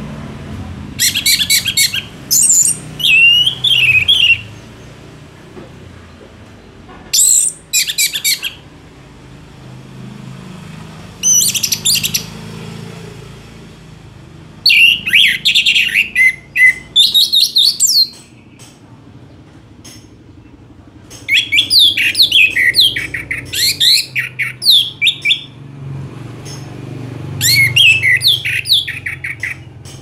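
Orange-headed thrush (anis merah) singing: about six loud phrases of rapid, varied sweeping notes, each one to three seconds long, with short pauses between them.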